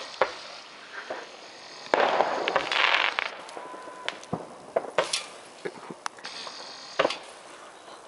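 Firework rockets fired from a hand-held pipe launcher: two hissing rushes, the louder one about two seconds in and a shorter one near the end, among several sharp cracks and pops.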